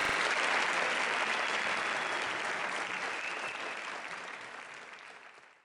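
Audience applauding, fading out steadily until it stops.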